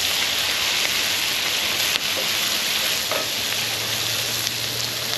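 Onions and garlic frying in a hot pan, a steady sizzling hiss.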